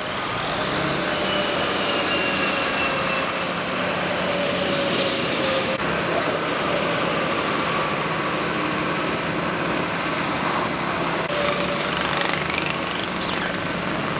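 Heavy diesel earthmoving equipment running steadily (dump trucks, an excavator, a loader and a crawler dozer) as gravel is loaded and moved. A brief rising whine comes near the end.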